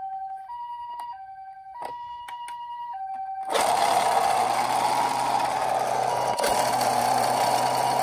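Toy ambulance's electronic two-tone hi-lo siren (the Japanese 'pee-paw' pattern), alternating between a higher and a lower tone about every half second. About three and a half seconds in, a louder steady rushing, whirring noise with a low hum takes over.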